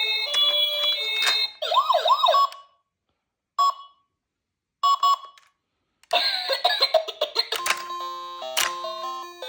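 Electronic toy siren sounds: a stepped beeping tune, two quick wailing sweeps about two seconds in, a few short beeps separated by silence, then a stepped electronic jingle from about six seconds in.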